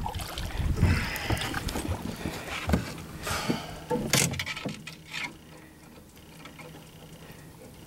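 Handling noise on an aluminum boat: water splashing as something is hauled over the side, with wind on the microphone, then several sharp knocks and scuffs against the hull and deck in the middle, growing quieter near the end.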